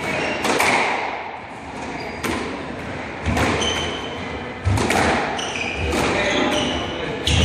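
Squash rally: the hard rubber ball smacks off racquets and the court walls several times, each strike ringing in the court's echo, with short high squeaks in between.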